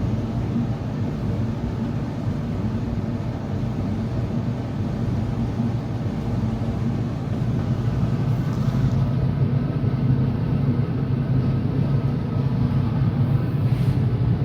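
Kenmore 90 series dryer running on test with its newly replaced drive motor: a steady hum and rumble, with the new motor working.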